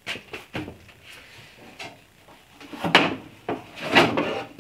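A handful of knocks and clunks of a wooden cabinet door being picked up and handled, with the loudest two about three and four seconds in.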